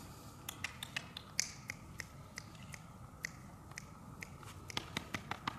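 Sharp, irregular clicks and crackles from straw bedding as Kangal puppies shift and step about on it, coming faster near the end.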